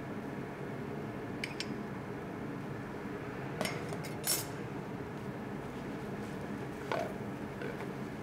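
Kitchen utensils and dishes clinking: a few sharp clinks of a spoon, sauté pan and small dish being handled on a steel counter, the loudest about four seconds in, over a steady low hum.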